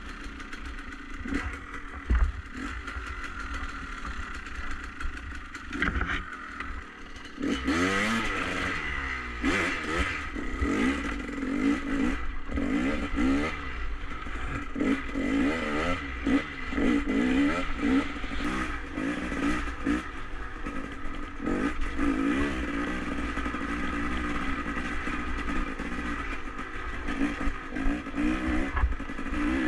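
Enduro dirt bike engine running low, with a knock about two seconds in; from about seven seconds in the engine revs up and down over and over as the bike rides off, with clatter of the bike over rough ground.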